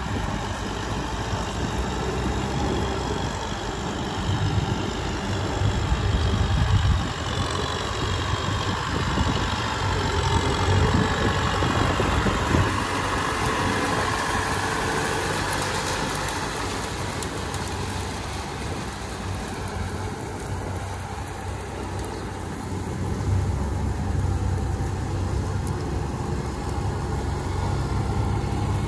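Diesel engine of a Kubota M6040SU tractor running under load as it pulls a rotary tiller through a flooded paddy, with a second tractor running farther off. The sound is loudest around the middle, when the tractor passes close, and fades as it moves away.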